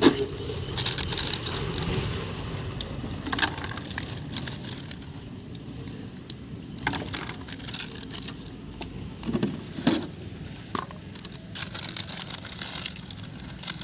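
Irregular crackling, rustling and clicking, with a few sharper knocks about three, seven and ten seconds in.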